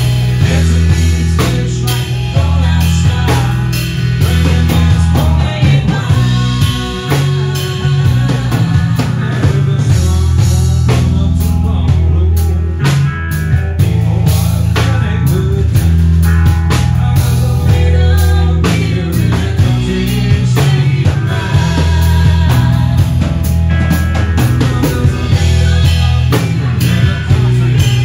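Outlaw country band playing live: guitar, bass guitar and drum kit, loud and steady with a regular beat.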